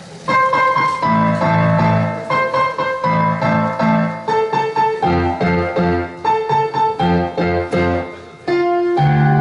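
Piano playing an introduction: chords struck in a steady rhythm under a melody line. It breaks off briefly near the end, then a low chord comes in.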